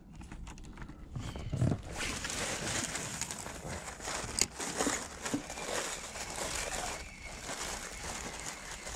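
Shimano Twin Power spinning reel being cranked on a fast retrieve: a steady whirring from the reel and the line, starting about two seconds in and dropping away about seven seconds in, with a few sharp clicks.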